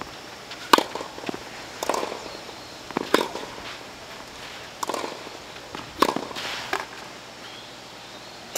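Tennis rally: a tennis ball hit back and forth with rackets, a sharp pop every second or two, the loudest strikes about a second, three seconds and six seconds in.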